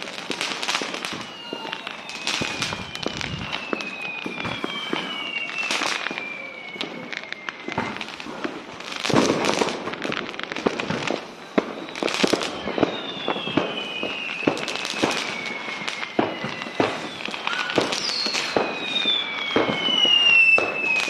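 Fireworks going off: a steady run of sharp bangs and crackles, with several long whistles that slowly fall in pitch as shells go up.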